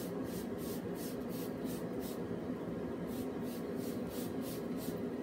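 Hand trigger spray bottle spritzing the hanging ribs. It gives two runs of quick squirts, about three a second, with a pause of about a second between them.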